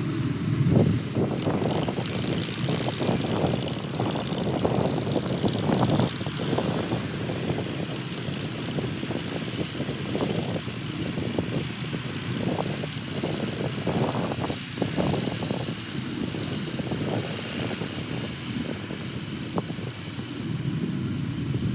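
Engine of a rice harvesting machine running steadily, with an uneven rumbling drone.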